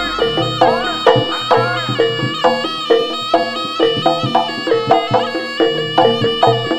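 Instrumental background music: a melody line that bends in pitch over a steady beat of struck or plucked notes, about two a second.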